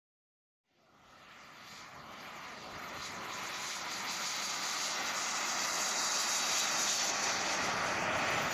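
Twin JetCat P120 model gas turbines of a quarter-scale RC English Electric Lightning running, a jet rush with a faint high whine that fades in and grows steadily louder over several seconds. Near the end a high whine starts to fall in pitch.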